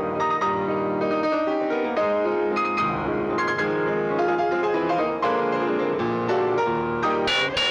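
Piano music with many quickly changing notes in a classical style, and a couple of sharp hits near the end.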